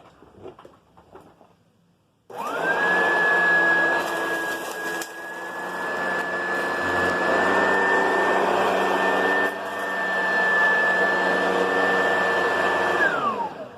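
Oreck XL Select upright vacuum cleaner's 4-amp motor switched on about two seconds in. It quickly spins up to a steady high whine, runs for about eleven seconds, then is switched off and the whine falls away.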